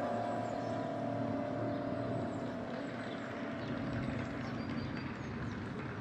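The carillon's big bronze bells hum on from the last chord, fading out over the first couple of seconds. Then comes a steady outdoor hum of distant road traffic, with a few faint high bird chirps.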